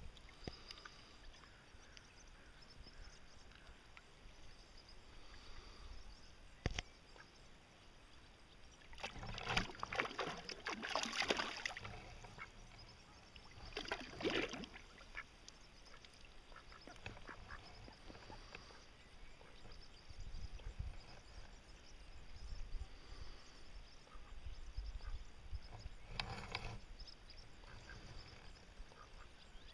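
Ducks quacking in three short bouts: a longer run about a third of the way in, a brief one near halfway and one near the end. Between the bouts there is a low rumble.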